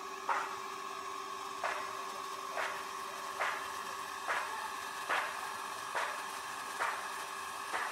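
Electric monoblock water pump running steadily, pumping pond water out through its delivery hose, with a steady hum. A short sharp tick recurs at an even pace, a little more than once a second.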